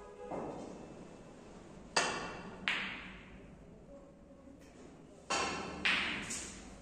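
Snooker balls clacking on the table: two pairs of sharp clicks, one about two seconds in and another a little after five seconds, each click ringing briefly in the room.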